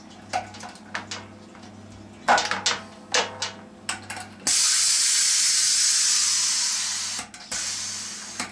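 A few metallic clinks from handling the fittings on top of a stainless steel homebrew keg. Then, about four and a half seconds in, a sudden loud hiss of gas pressure venting from the keg. It fades slowly, breaks off briefly and returns weaker near the end.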